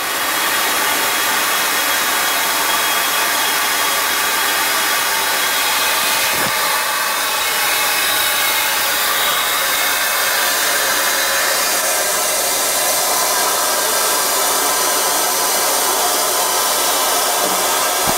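Liquid oxygen rushing through a frost-covered transfer hose and valves, a loud, steady hiss of very cold oxygen gas and liquid. It comes on suddenly as a valve opens and holds unbroken.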